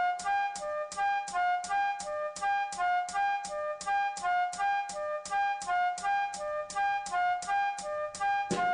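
Music: a looping staccato melody of short pitched notes, about four a second, with a heavier low beat coming in near the end.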